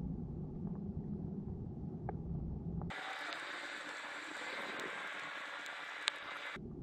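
Underwater ambience picked up by an action camera in its waterproof housing: a muffled low rumble with a few faint clicks. About three seconds in it switches abruptly to a thin steady hiss, then returns to the rumble near the end.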